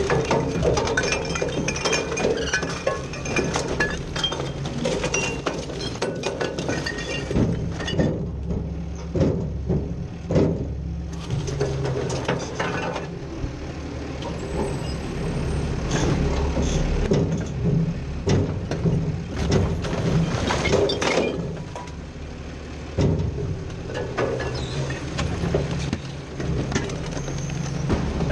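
Side-loader garbage truck running, heard from inside its hopper, with loose recyclables clattering and knocking about many times over a steady low engine hum.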